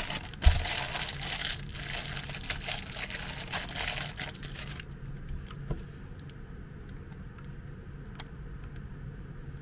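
Thin plastic bag crinkling and rustling for about five seconds as a new electrical plug is unwrapped, with a knock about half a second in. Afterwards a few faint clicks.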